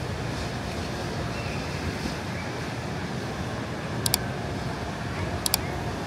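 Steady background noise of a busy shopping mall, a low even rumble of ventilation and crowd. Two sharp clicks come about four and five and a half seconds in.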